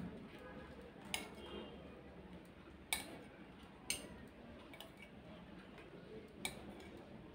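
A serving spoon clinking against ceramic plates four times, short sharp clicks spread a second or more apart, as fish curry and gravy are spooned onto rice.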